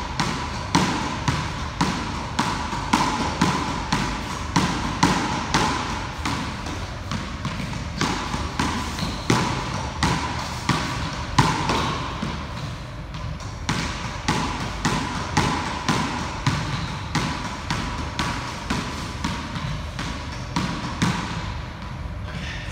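A squash ball hit over and over with a racquet in a solo rally on a squash court: a quick, steady run of sharp smacks from racquet, front wall and wooden floor, about two to three a second.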